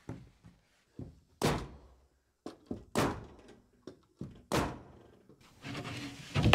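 Bostitch nail gun firing nails through a plywood wall sheet into the studs: three sharp shots about a second and a half apart, with a few lighter knocks between. Near the end come scraping and a loud knock as the next plywood sheet is pushed into place against the wall.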